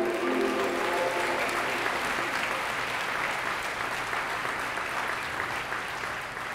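Audience applauding, a steady clatter of clapping that eases off slightly near the end. The last held notes of music fade out in the first second.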